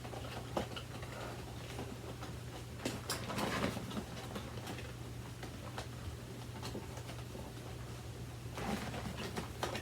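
Light handling noises from a vacuum bag and vacuum parts being worked with by hand: scattered clicks and rustles, busiest a few seconds in and again near the end, over a steady low hum.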